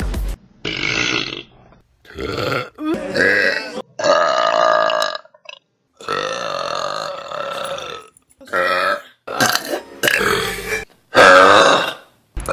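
A rapid series of about eight loud human burps from different people, one after another. Each lasts from half a second to two seconds, with short gaps between them, and each cuts off abruptly.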